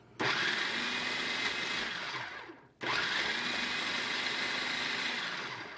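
Electric food processor run in two pulses of two to three seconds each, chopping stewed tomatoes; the motor winds down after each pulse.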